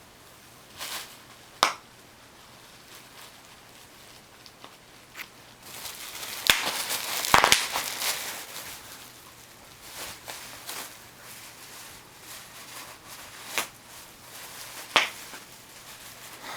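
Bubble wrap crinkling with sharp pops a few seconds apart, and a busier stretch of crinkling and popping about six to eight seconds in.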